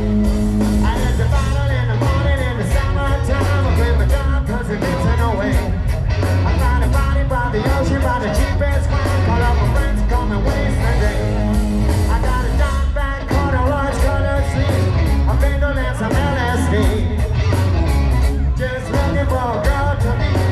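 Hard rock band playing live: a male singer over electric guitars, bass and drums, loud and continuous.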